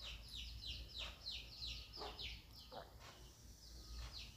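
Small birds chirping faintly, a quick run of short falling chirps several times a second, with a few soft knocks.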